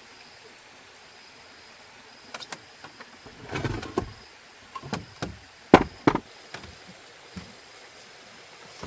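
Irregular knocks and clatters over a steady background hiss, with a noisier scuffle about three and a half seconds in and the two loudest knocks about six seconds in.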